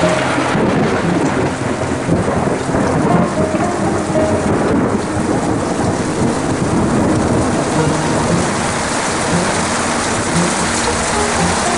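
Heavy rain in a steady downpour, pouring down and streaming off a roof edge.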